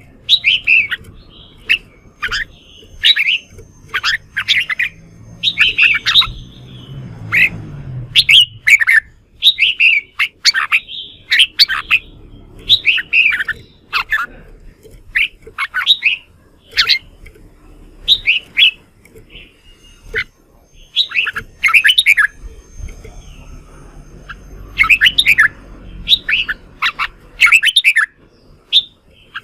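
Red-whiskered bulbuls singing loudly in short, sharp, chattering phrases, one after another with brief gaps: the excited challenge song of males being stirred up to sing against each other.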